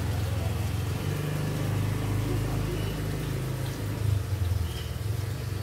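A motor running with a steady low hum, its pitch pattern shifting about a second in.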